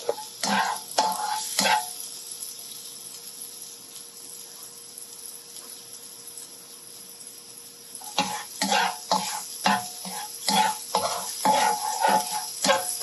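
A spatula scraping and stirring minced garlic around a nonstick wok as it fries in hot oil, with a low sizzle underneath. A few quick strokes come at the start, then a lull of about six seconds, then rapid repeated strokes from about eight seconds in.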